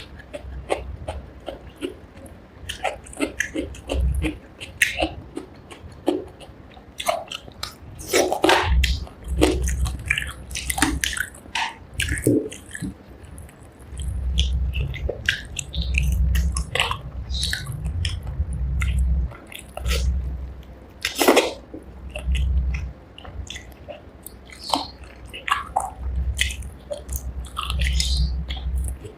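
Close-up chewing and wet mouth sounds of a person eating rice with spicy fish curry: irregular smacks and clicks over dull low thumps.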